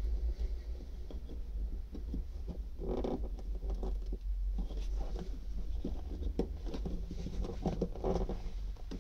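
Hands working the plastic fuel-line connectors and rubber hoses on a van's fuel-tank sender unit: small irregular clicks, taps and rustles, with a cluster about three seconds in and another near the end. A steady low hum runs underneath.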